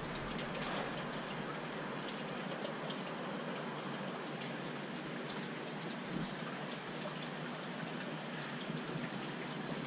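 Steady, even hiss of running water in a large aquarium, with a few faint ticks.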